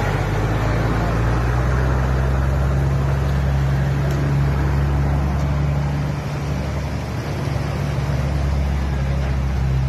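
Motorcycle engine running steadily at low speed, with a low, even hum.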